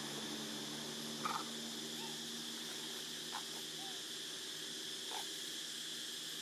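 Steady high drone of insects, with a few short faint squeaks from a baby long-tailed macaque being handled roughly by an adult. The clearest squeak comes about a second in, with smaller ones later.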